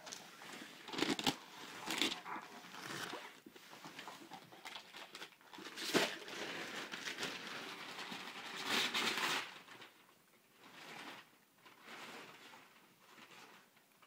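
Christmas wrapping paper crinkling and tearing as a Rottweiler puppy rips into it, in irregular rustling bursts: a sharp one about six seconds in, a longer one around nine seconds, then only softer rustles.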